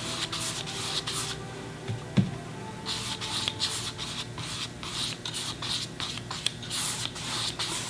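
Paintbrush dragging acrylic paint across a canvas in side-to-side strokes, a run of short, scratchy swishes with a brief pause about two seconds in.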